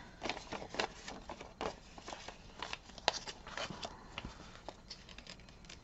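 Paper banknotes being handled: light, irregular rustling and crinkling of bills as cash is pulled out and tucked away.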